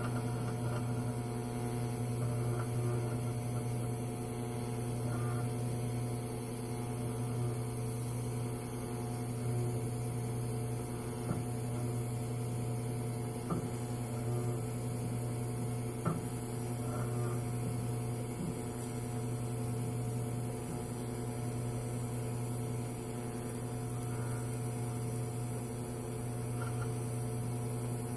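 Miller Syncrowave 250 transformer TIG welder humming steadily while TIG welding steel angle iron, with a few faint clicks around the middle.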